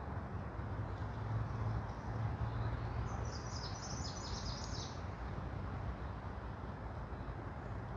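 Forest ambience: a steady rush of background noise with a low hum, and a small songbird singing a quick run of high notes about three seconds in, lasting around two seconds.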